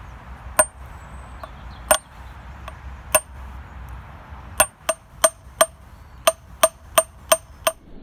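Hammer striking heavy-gauge steel fence wire on an old axe head used as an anvil, cold forging a blanket pin: about a dozen ringing metal strikes, three slow ones, then a quicker run of about three a second.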